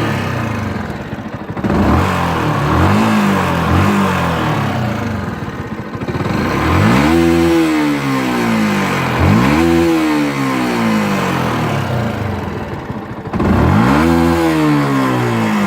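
Stock 2018 Yamaha YZF-R125's single-cylinder four-stroke engine through its standard exhaust, revved repeatedly. Two short throttle blips come first, then three bigger revs, each climbing quickly and falling back more slowly to idle.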